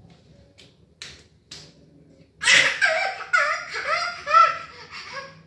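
A baby squealing and laughing in a run of short, high-pitched, rising-and-falling bursts that starts about halfway through and lasts about three seconds, after a few faint taps.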